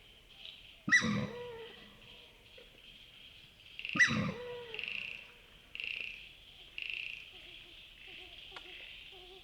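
Australasian swamphen giving two loud, sudden calls about a second in and again about four seconds in, each falling in pitch, over a steady high-pitched chorus.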